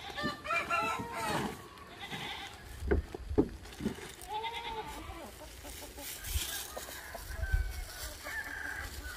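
Farm animal calls: a long arching call about half a second in and a shorter one around four and a half seconds. Plastic bags and sacks being handled in a pickup bed, with a few knocks around three seconds.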